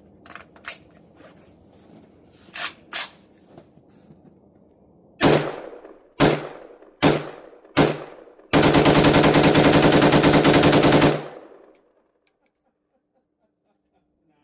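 Zastava M70 AK rifle with a forced-reset trigger: a few small handling clicks, then four single shots about a second apart. Then a fast continuous string of shots lasting nearly three seconds, emptying the magazine.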